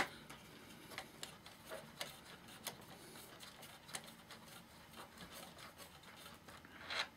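Long-nose pliers turning the retaining nut off the volume-control shaft of a Sansui AU-X111 amplifier: faint, scattered small clicks and scrapes, with a louder scrape near the end.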